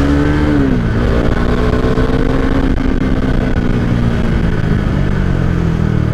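Bajaj Dominar motorcycle's single-cylinder engine running on the move. Its note drops sharply about half a second in, then settles into a steady lower note that sinks slowly as it cruises.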